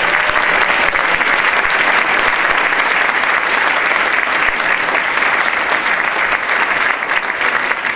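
Audience applauding steadily for an award winner, many hands clapping at once.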